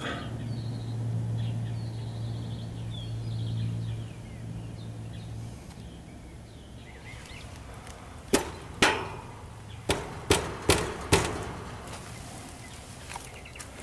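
An air-conditioning condenser unit hums steadily for about five and a half seconds, then cuts out; a bad connection on its contactor is making it drop out. Several sharp metallic clicks and knocks follow a couple of seconds later.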